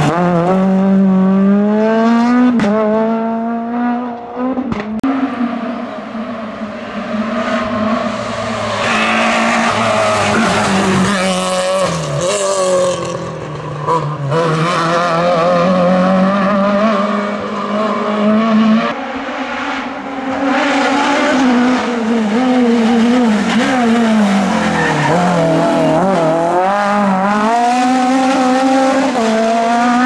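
F2000-class rally cars driven hard one after another, their engines at high revs. The pitch climbs and then drops sharply many times over as the drivers change gear and lift off for corners.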